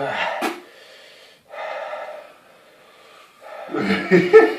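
A man gasping and blowing out hard breaths, with a short click about half a second in, as he reacts to the burn of an extremely hot chilli. A voice starts near the end.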